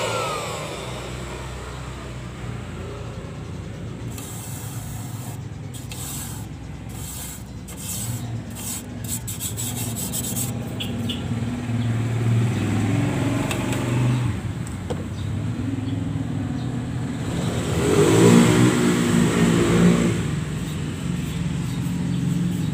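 A canister vacuum cleaner's motor winding down to a stop in the first moment, its whine falling in pitch. It is followed by an uneven low engine-like rumble with some rubbing and scraping, which swells louder about three-quarters of the way through.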